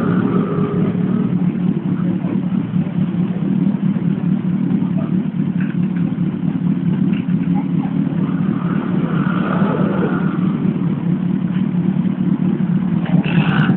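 Yamaha SR400's air-cooled single-cylinder four-stroke engine idling steadily through its exhaust.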